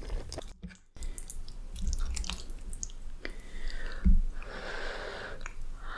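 Close-miked eating of cheesy pasta: wet chewing and mouth clicks. There is a short silent gap about a second in, and a soft thump about four seconds in followed by a breathy hiss.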